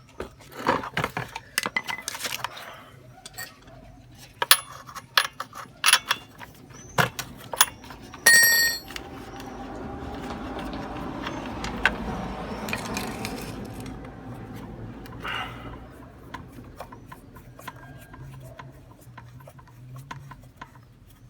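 Hand tools and small metal parts clinking and knocking on a workbench, with a bright metallic ring about eight seconds in, followed by several seconds of rubbing and rustling handling noise and a few light clicks.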